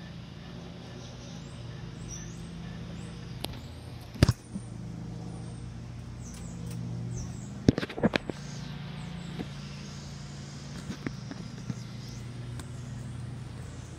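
Ceiling fan running with a steady low motor hum. A few sharp knocks cut in: one about four seconds in, a quick cluster around eight seconds in, and smaller ones later.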